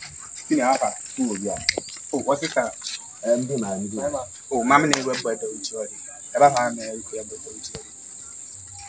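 People talking in the Nzema language over a steady, high-pitched insect trill, crickets, that runs on beneath the voices.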